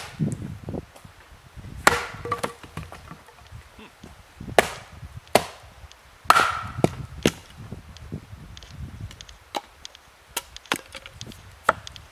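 Hatchet splitting firewood on a stump chopping block: a run of sharp, irregularly spaced strikes of the blade and log into wood, several with a short ring as the wood cracks, the strikes growing lighter near the end.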